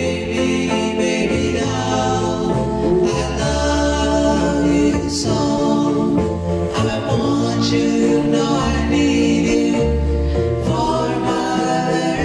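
Early-1960s doo-wop record: a vocal group singing the intro in close harmony over low bass notes, with no lead lyric yet.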